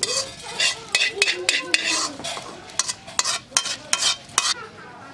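Cumin seeds tipped from a metal scoop into a stainless steel bowl, the scoop clinking and scraping against the bowl: a quick run of sharp, irregular clinks that stops about four and a half seconds in.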